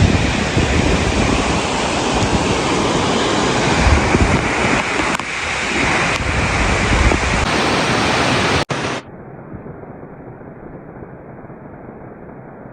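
Loud, steady rushing noise with a gusty low rumble, like wind on the microphone or falling water. A little under nine seconds in it drops abruptly to a much quieter, muffled hiss.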